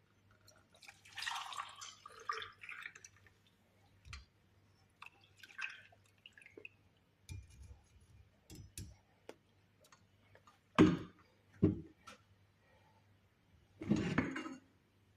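Liquid pouring and dripping in a kitchen, with scattered light clicks and a few louder knocks of kitchenware near the end.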